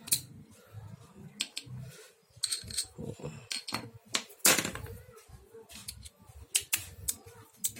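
Steel sockets and drive pieces of a socket set clicking and clinking as they are handled and a small socket is fitted onto its extension, in irregular sharp clicks and knocks, the loudest about four and a half seconds in.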